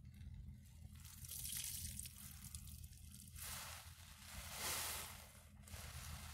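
A large wet sponge soaked in foaming cleaner is squeezed by gloved hands, so that soapy liquid squelches and froth hisses out. It comes in slow swells, the loudest one about halfway through, over a faint steady low hum.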